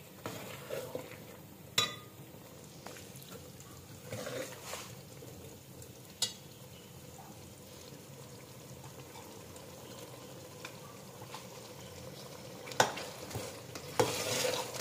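A metal ladle stirring minced meat, peas and sliced potatoes in a metal cooking pot, with a few sharp knocks and scrapes of the ladle against the pot over a steady low sizzle of the simmering curry.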